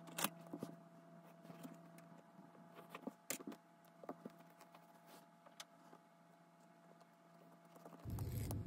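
Faint, scattered small clicks and taps of sewing tools being handled on fabric (a plastic ruler, a marker, small scissors snipping stabilizer), over a faint steady hum.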